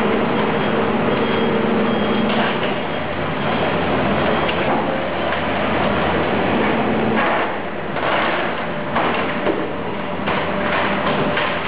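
Heavy machinery running steadily with scraping and rattling of metal, and several knocks in the second half, typical of a car dismantling yard.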